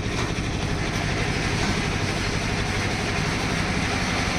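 A machine running steadily: an even, constant-pitched low hum under a broad hiss.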